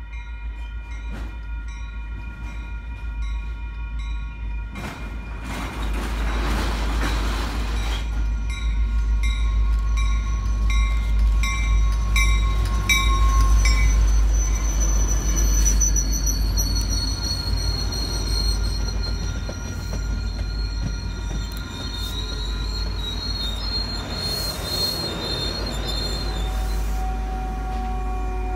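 Train rolling past, its steel wheels squealing against the rails in high, wavering tones over a deep rumble. Regular clicks of the wheels crossing rail joints come in the first few seconds, and the squeal grows louder about halfway through.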